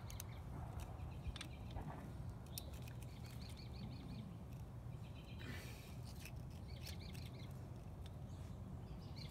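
Small birds chirping in short repeated phrases over a steady low hum, with a few light clicks from the clutch parts being handled.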